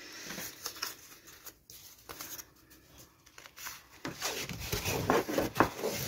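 Paper and card from a file folder being handled: quiet at first, then a run of short rustles and scrapes from about four seconds in.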